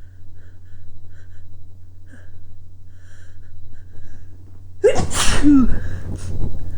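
A single loud human sneeze about five seconds in, after a few seconds of faint quiet sounds.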